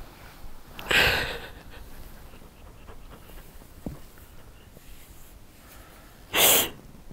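A person crying: two loud, sharp sniffing breaths, one about a second in and a shorter one near the end, with quiet in between.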